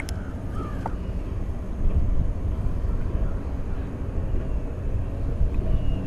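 Wind buffeting the camera's microphone: a steady low rumble that rises and falls in gusts. A few faint bird chirps sound above it.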